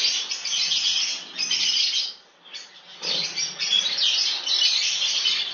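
Birds chirping and chattering, several at once in a dense, busy stream, breaking off for under a second about two seconds in.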